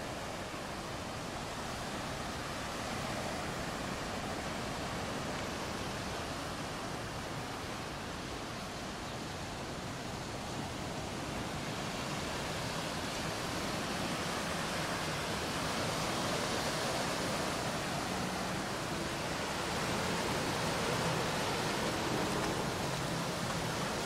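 Sea surf washing onto the beach: a steady rush of noise that grows a little louder in the second half.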